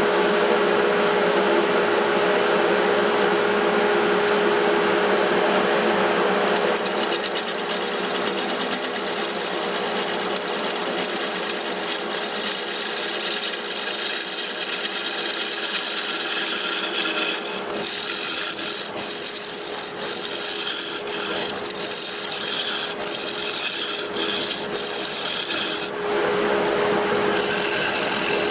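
Wood lathe running with a steady hum while a gouge cuts into a hard burl, hollowing it out. A few seconds in the cut turns into a fast, rattling scrape, and in the second half it comes in short, uneven strokes until shortly before the end.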